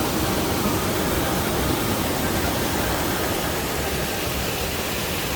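Waterfall, water rushing and falling in a steady, even roar of noise.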